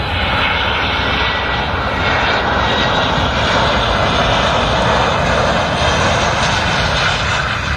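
Airbus A320 jet engines running as the airliner flares just above the runway to land: a loud, steady rushing noise that swells after the first second and eases slightly near the end.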